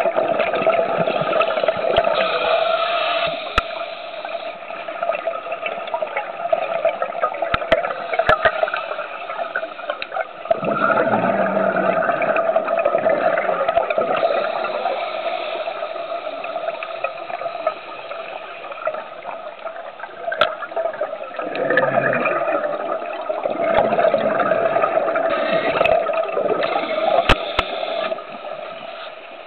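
Scuba regulator exhaust bubbles heard underwater: a gurgling, rushing noise that swells and fades in long surges of several seconds, with a few sharp clicks.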